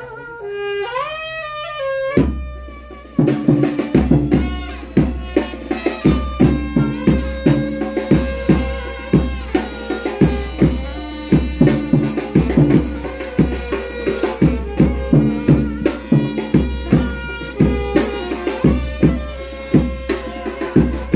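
Instrumental music: a wind-instrument melody, then from about two seconds in a steady drum beat with a bass line under a held tone.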